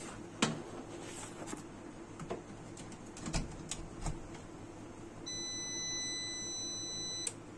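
A few sharp clicks and knocks in the first four seconds, then a steady high electronic beep held for about two seconds that stops abruptly.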